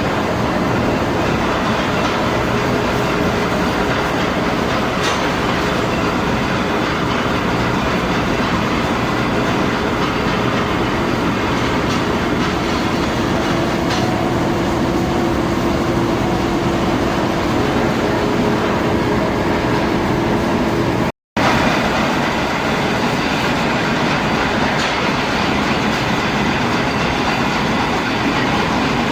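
Metal lathe running steadily while turning a steel shaft, a loud continuous mechanical noise with a faint steady tone through the middle. It breaks off for an instant about two-thirds of the way in, then carries on the same.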